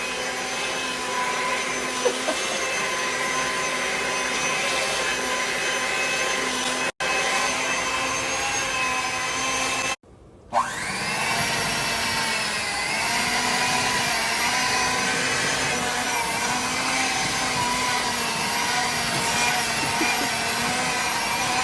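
An electric motor runs steadily with a whine. It cuts out briefly twice, then spins back up about ten seconds in.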